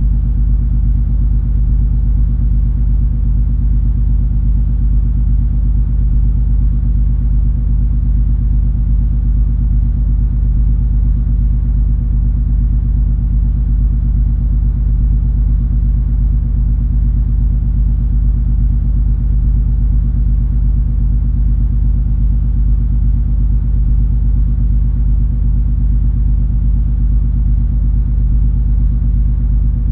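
Steady low rumble of the MS Color Fantasy cruise ferry's engines under way, heard aboard, with a constant deep hum.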